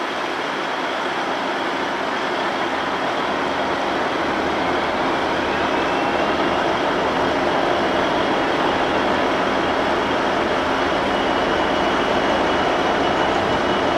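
Class 66 diesel-electric locomotive with its two-stroke V12 engine running as the engineering train draws slowly closer, the sound growing gradually louder. A faint steady high-pitched squeal comes in about five seconds in.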